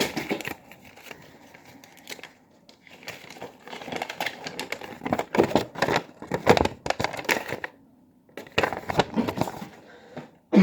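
Toy packaging crinkling and rustling as it is handled, in irregular bursts of crackles and clicks.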